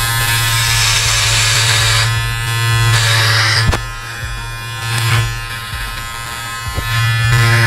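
Electric hair clipper buzzing steadily as it cuts long hair straight across at chin length, its buzz swelling and fading in loudness a few times.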